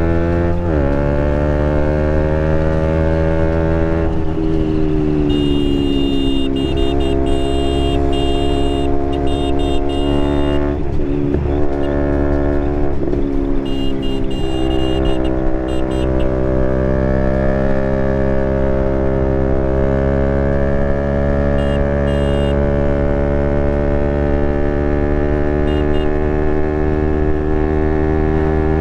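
Motorcycle engine running under way with steady wind rush. Its note falls and climbs as the bike slows and speeds up, dipping quickly a few times about eleven to thirteen seconds in.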